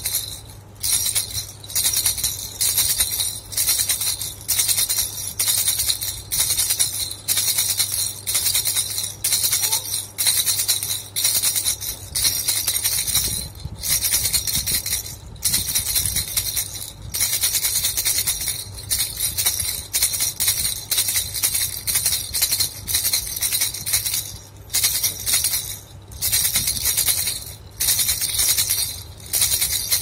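Plastic baby rattle shaken by hand in repeated short bursts with brief pauses, a bright rattling hiss, over a faint steady low hum.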